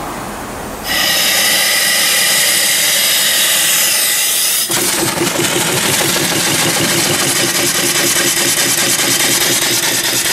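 Homemade single-cylinder vertical steam engine (3-inch bore, 4-inch stroke) being started on steam. About a second in, a loud hiss of steam starts suddenly. Near the middle, the engine settles into fast, even exhaust beats with a steady tone over the hiss.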